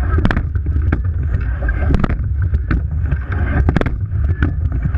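Wind buffeting the microphone at the bow of a rowing eight under way, over the hiss of water rushing along the hull. Sharp knocks from the boat recur about every two seconds, in time with the crew's rowing stroke.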